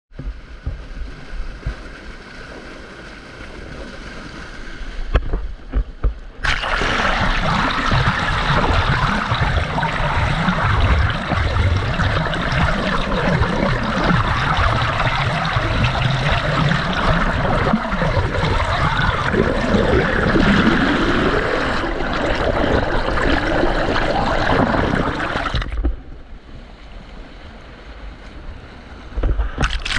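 Water rushing and bubbling through a small stream cascade, heard with the microphone underwater, with a low churning rumble. It swells sharply louder about six seconds in and drops back to a quieter gurgle a few seconds before the end.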